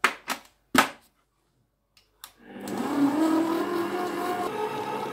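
Electric stand mixer being switched on: a few clicks from its speed dial, then after a short pause the motor starts, rising a little in pitch, and settles into a steady hum as the whisk beats oil and sugar in the steel bowl.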